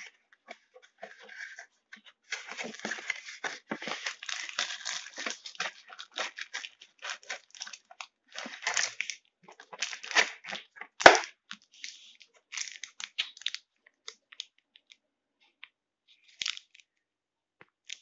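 Cardboard box of dishwasher tablets being handled and rummaged through, with the plastic wrappers of the tablets crinkling: irregular tearing and rustling for some ten seconds, with one sharp click about eleven seconds in.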